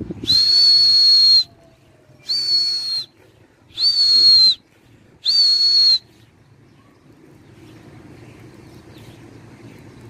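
Four loud whistle blasts at one steady high pitch, the first the longest at about a second, the others shorter, all within the first six seconds: a pigeon flyer whistling to his flock.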